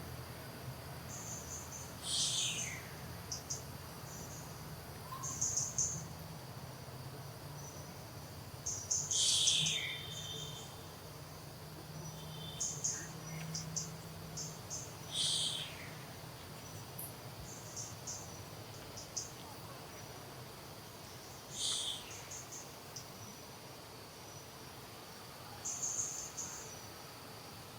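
Steady high-pitched insect chirring, with a short, high call that slides down in pitch every few seconds.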